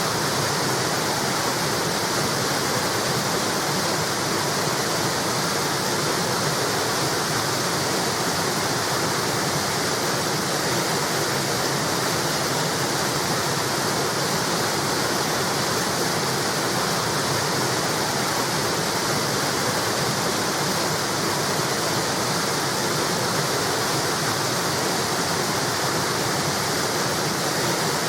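River water flowing over a small weir, a steady even rushing splash.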